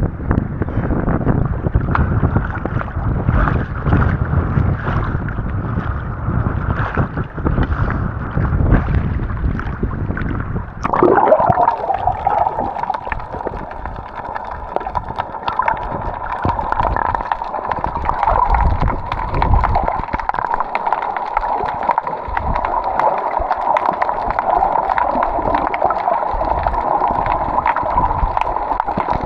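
Sea water gurgling and sloshing close to the microphone while snorkeling, with wind buffeting at first. About a third of the way in the sound changes abruptly to a duller, steadier gurgle.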